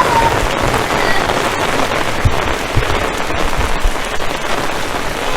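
Heavy rain falling steadily, an even hiss, with a few brief low thumps in the middle.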